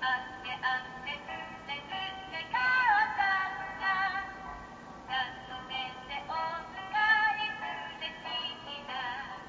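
A children's electronic sound book playing a Japanese nursery song through its small built-in speaker: a thin, tinny-sounding singing voice with a melody, in short phrases.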